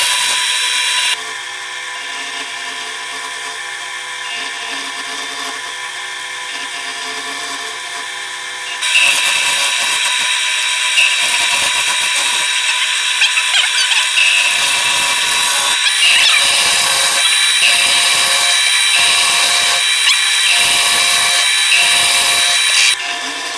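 Wood lathe running with a steady motor whine while a turning tool cuts the spinning wooden mallet blank, with a hiss of cutting. The sound drops about a second in and grows louder again about nine seconds in.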